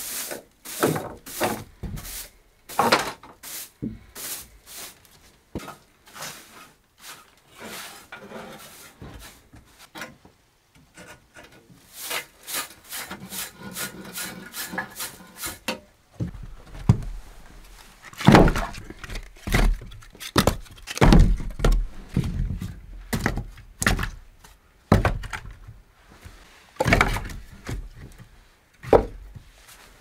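Broom sweeping a wooden plank floor in quick repeated strokes, with footsteps and knocks on the boards; heavier wooden thuds come in the second half.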